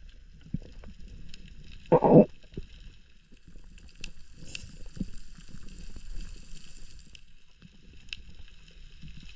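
Underwater sound picked up by a diving camera: low rumbling water noise with scattered sharp clicks. A short loud burst comes about two seconds in, and a steady high whine runs from about three and a half to seven seconds.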